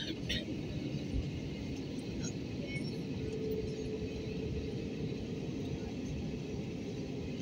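Airbus A320 cabin noise while taxiing: a steady low rumble of the engines at idle and the wheels rolling on the taxiway, heard from inside the cabin. A couple of light clicks come right at the start, and a faint steady hum joins about three seconds in.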